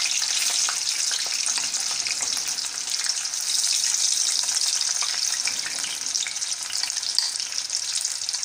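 Cornflour-coated sweet corn kernels deep-frying in hot oil: a steady sizzling hiss with many small crackles and pops.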